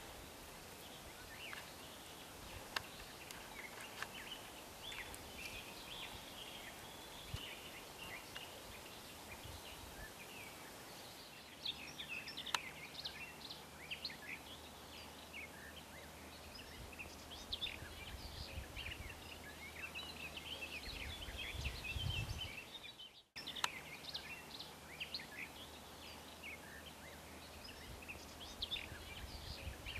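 Many small birds singing at once, a dense run of short chirps and trills, with a few sharp clicks. A low steady hum sits under the middle stretch, and the sound changes abruptly twice, about 11 and 23 seconds in.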